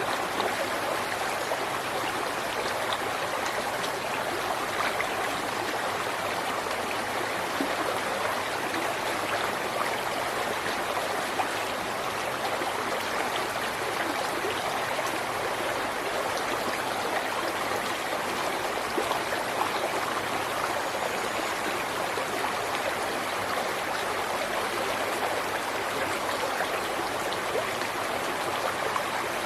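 A river or stream flowing steadily, with a constant rushing of water over rocks and small splashes and trickles.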